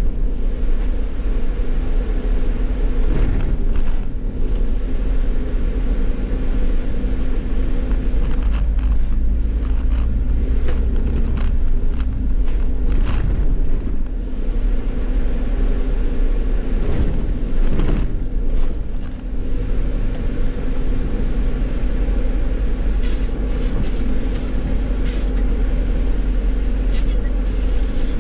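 Irisbus Cityclass city bus with an Iveco Cursor natural-gas engine, heard from the driver's seat while driving: a steady low engine drone and rumble, with scattered short clicks.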